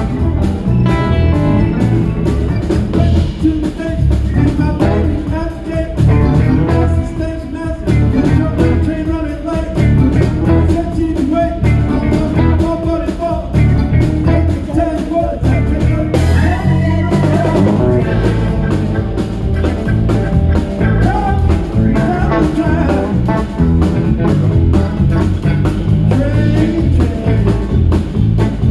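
Live rock band playing: electric guitar over electric bass and a drum kit keeping a steady beat.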